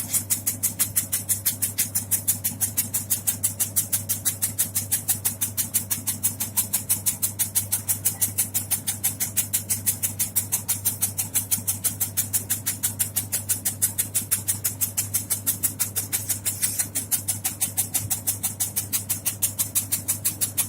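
Automatic tobacco-shredding machine running, its cutter chopping in an even beat of about four strokes a second over a steady motor hum.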